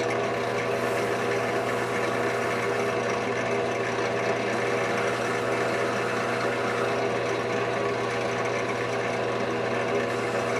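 Drill press running steadily with a small abrasive sanding drum spinning in its chuck, while the end of a thin steel music wire is held against the drum and ground smooth.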